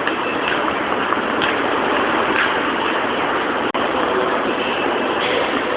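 Steady city street traffic noise, a dense hiss of passing vehicles and engines, broken by a brief dropout a little past halfway.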